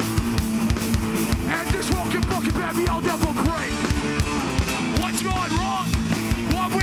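Live hardcore punk band playing loudly: distorted electric guitars, bass and fast, steady drums, with a singer shouting over them.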